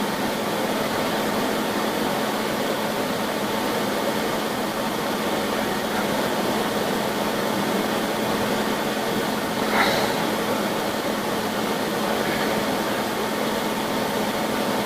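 Steady, even hiss with a faint low hum, broken by one short knock about ten seconds in.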